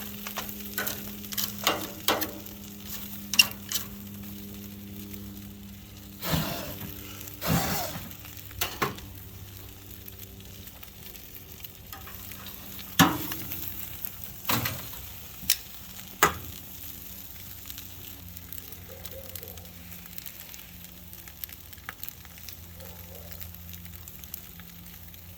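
Bone-in ribeye searing directly on red-hot hardwood lump charcoal: a steady sizzle with frequent sharp crackles and pops from the coals, and several louder short bursts spread through the first two-thirds.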